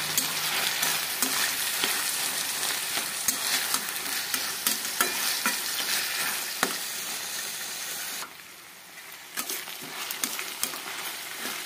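Chopped flat beans, onions and green chillies sizzling in oil in a stainless-steel kadai, while a steel spatula stirs them, scraping and clicking against the pan. The sizzle drops away for about a second, about eight seconds in.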